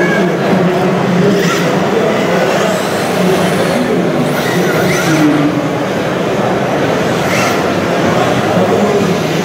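Radio-controlled drift cars and a radio-controlled truck running on an indoor track: a steady mix of small-motor whine and tyre noise over a loud hall background, with a few brief passes as cars slide by.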